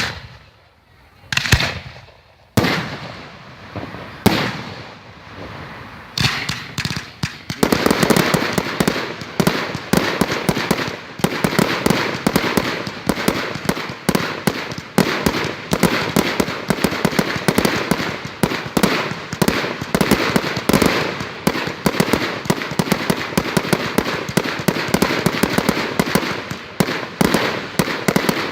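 Fireworks exploding: a few separate bangs in the first seconds, then from about seven seconds in a dense, unbroken barrage of rapid crackling bangs.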